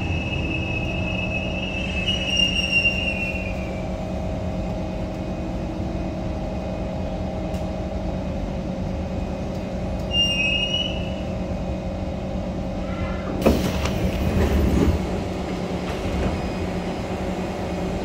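Kawasaki Heavy Industries C151 metro train running, heard from on board: a steady rumble with a held hum. High-pitched wheel squeal rises near the start and again briefly about ten seconds in, and there is a short loud clatter about thirteen seconds in.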